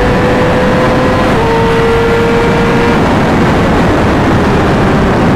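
Heavy wind rush on the motorcyclist's helmet microphone at high motorway speed, with the Yamaha R6's inline-four engine note underneath. The engine note steps down slightly about a second and a half in and fades under the wind about three seconds in as the bike slows.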